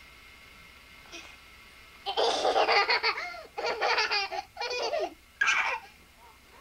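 Young children laughing in several loud, high-pitched bursts, starting about two seconds in.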